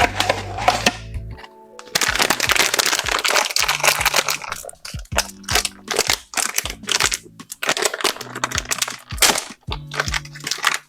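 Blind-box packaging being crinkled and torn open by hand, a dense run of sharp crackles that thickens about two seconds in, over background music.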